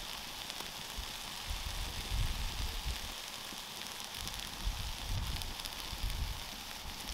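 Wood campfire burning: light, scattered crackles over a steady hiss.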